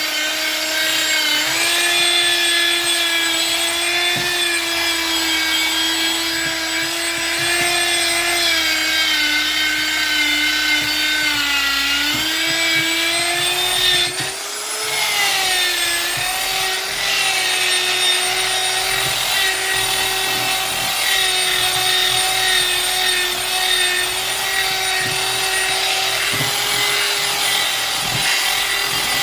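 High-speed electric power tool working wood, its motor giving a steady high whine. The pitch sags and recovers a few times, most markedly about halfway through, where it briefly wavers and dips in level.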